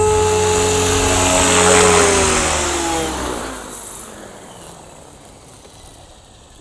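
RJX Vectron 520 radio-controlled helicopter's motor and rotor running steadily, then spooling down. From about two seconds in, the pitch falls and the sound fades away as the rotor winds down with the model sitting on the ground.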